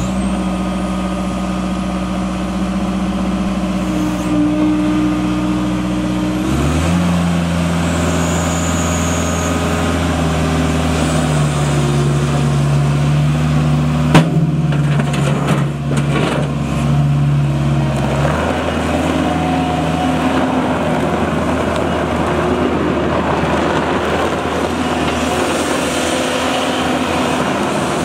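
New Holland L170 skid steer loader's diesel engine running just after starting: it idles steadily, then is throttled up about six seconds in to a higher steady speed. There is one sharp knock about halfway through, and in the later part the engine sound turns rougher and noisier.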